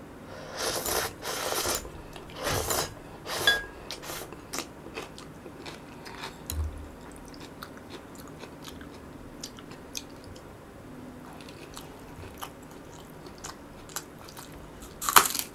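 Close-up eating sounds: a few noisy slurps of Buldak spicy noodles in the first few seconds, then quiet chewing with small mouth clicks, and a loud crunchy bite into a raw green onion stalk near the end.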